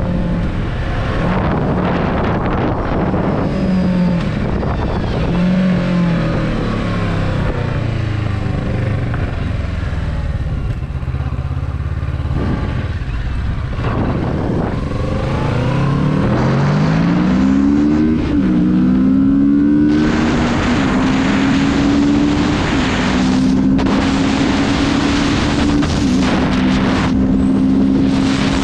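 Kawasaki Z650's 649 cc parallel-twin engine under way: the revs fall in the first several seconds, then rise steeply twice with a gear change between, about halfway through, and hold steady at cruise for the last third. Wind rushes over the microphone throughout.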